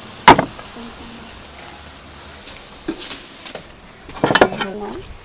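Dishes set down on a wooden table: a sharp knock about a quarter second in, a lighter one near three seconds, and a cluster of knocks and clinks about four seconds in as a bowl is placed.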